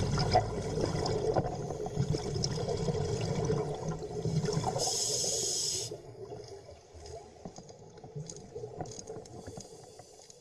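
Watery underwater ambience full of small crackles and trickles, with a brief hiss about five seconds in. It drops away after that and fades out.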